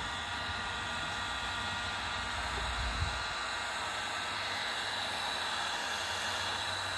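Milwaukee M18 cordless heat gun's blower running, a steady airy hiss with a faint whine.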